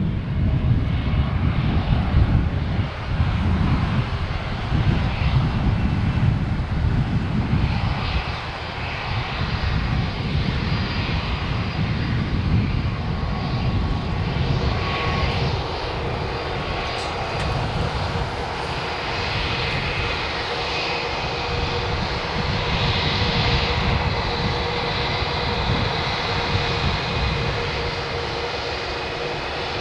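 Airbus A320 jet engines heard during its landing: a heavy low rumble, strongest in the first few seconds, then a steadier engine noise with a whine of several steady tones from about halfway through.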